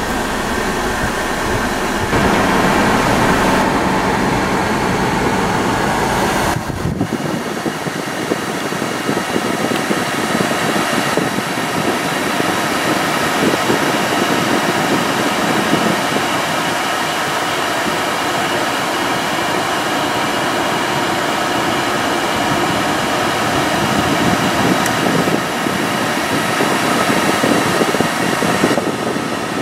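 Steady rushing air from the cabin climate-control blower of a 2013 BMW X3 xDrive28i, with the engine idling underneath. The rush grows louder about two seconds in, and the deep rumble fades out about seven seconds in.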